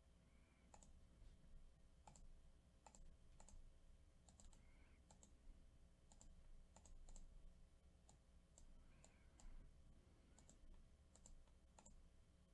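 Faint computer mouse clicks, short and sharp, coming irregularly about one or two a second, some close together.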